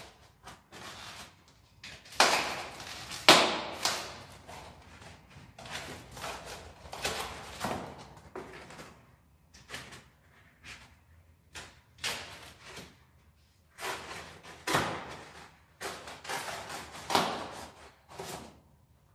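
Packaging being stripped off a new bicycle: a run of irregular rustles, scrapes and knocks from wrapping and protective pieces being pulled away and handled, loudest a couple of seconds in.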